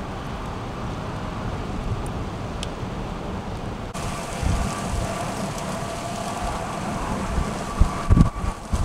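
Steady hiss of freezing rain falling during an ice storm. Near the end, wind buffets the microphone in low gusts, and after about four seconds a faint steady hum sits under the rain.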